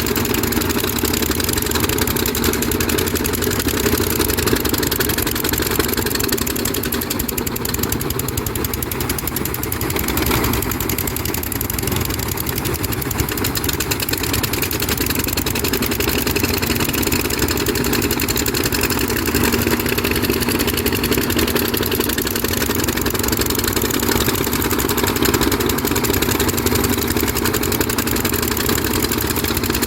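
Diesel engine of a Kobelco SK200 hydraulic excavator running steadily.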